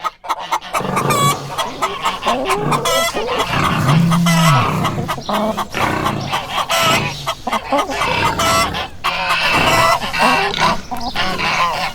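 Farmyard chorus of many animals calling over one another, mostly chickens and other fowl clucking, with a short, low, arching call about four seconds in.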